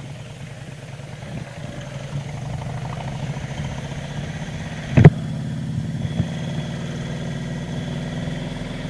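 2005 Harley-Davidson Road King Classic's V-twin engine running steadily, with a single sharp thump about five seconds in.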